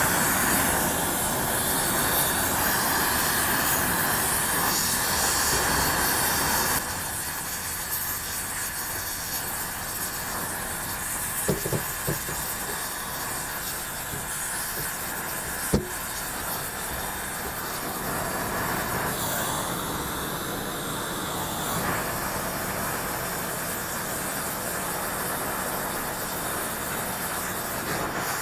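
Oxy-fuel torch flame hissing steadily while it heats a sand-filled black iron pipe to bend it. The hiss drops to a lower level about seven seconds in, and two short sharp ticks come later.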